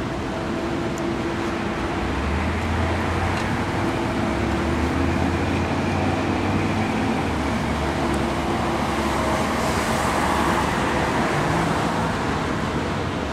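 Engine of a mid-1960s Chevrolet full-size sedan running at low speed as the car creeps past, a steady low rumble that is strongest in the first half. A broader rush of traffic noise swells about ten seconds in.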